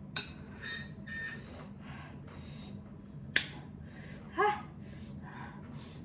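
Close-up eating sounds of spicy noodles: a string of short breathy slurps and sniffs, a sharp clink of metal cutlery on the plate about three and a half seconds in, and a short voiced gasp about a second later.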